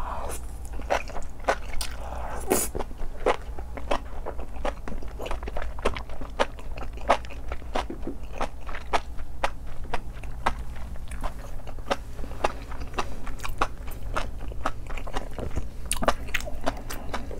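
Close-miked ASMR chewing of a chewy, spicy Buldak wrap: a bite at the start, then steady chewing with many short, sharp mouth clicks, several a second.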